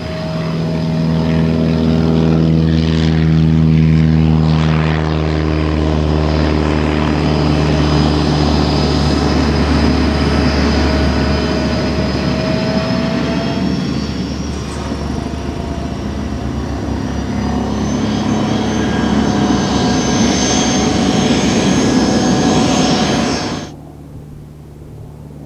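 Twin rear-mounted turbofan engines of a business jet at taxi power: a steady jet whine over a low hum, swelling and easing a little as the jet taxis and turns. It cuts off suddenly near the end, leaving a fainter steady hum.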